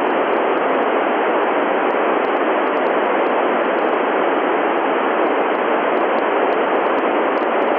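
Steady, loud hiss of an FM amateur-radio receiver on the ISS 145.800 MHz downlink with no signal coming through, heard between the station's transmissions after "Over".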